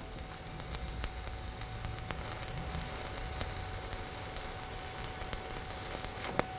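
Stick (SMAW) welding arc on steel pipe, crackling and sizzling steadily as the electrode burns.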